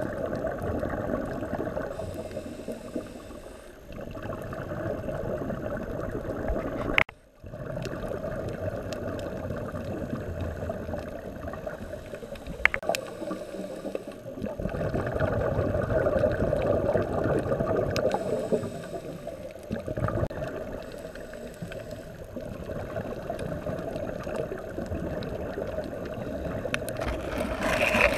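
Muffled underwater noise heard through a dive camera's waterproof housing: the rush and gurgle of a scuba diver's exhaled bubbles, swelling and fading every few seconds. The sound cuts out briefly about seven seconds in.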